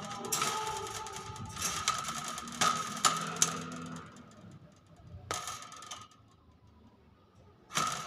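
Hill myna making harsh, noisy calls in several bursts over the first four seconds, with a few sharp clicks among them. A single sharp click comes a little after five seconds in, and another harsh call begins near the end.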